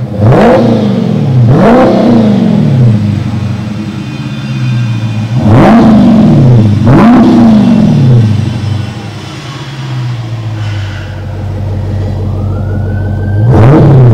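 Dodge Charger Scat Pack's 6.4-litre HEMI V8 breathing through Carven TR-Series mufflers with the resonators deleted, revved in quick blips from idle. It revs twice near the start, twice more around the middle and once at the end, settling back to a steady idle in between.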